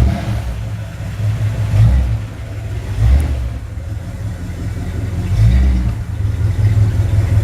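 1974 Plymouth Duster's engine running just after starting on fresh oil, with about four light throttle blips that make it rise briefly and settle back.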